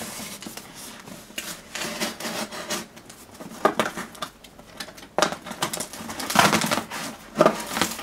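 Utility knife slitting packing tape on a cardboard box, followed by the tape being peeled and the cardboard flap pulled open. The result is an irregular run of scratching, ripping and rustling, loudest in the last few seconds.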